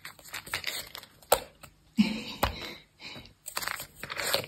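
A Bengal cat scooping treats out of a treat tub with its paw: irregular scraping and rustling inside the tub, with a couple of sharp clicks of treats knocking against it.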